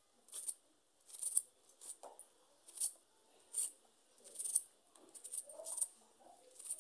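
Kitchen knife slicing through a red onion held in the hand, a short crisp crunch with each cut, eight or nine cuts in a steady run.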